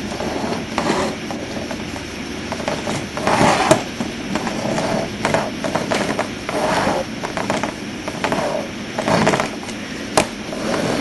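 Small plastic Lego vehicle, the Power Miners Stone Chopper, pushed and rolled by hand across a whiteboard, its plastic wheels and blade scraping and rattling. The noise swells several times as it is run back and forth, with sharp plastic clicks in between.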